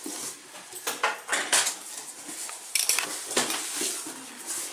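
Cardboard packaging being handled as a box is opened by hand: an irregular string of short knocks, scrapes and rustles as flaps and inner cardboard pieces are pulled back.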